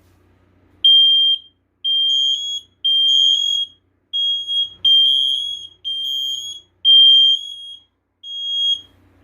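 First Alert smoke alarms sounding during an interconnect test: loud, high-pitched piezo horn beeps, about one a second in a slightly uneven rhythm.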